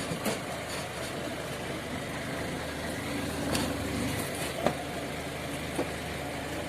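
Safari truck engine idling steadily, with a couple of faint clicks.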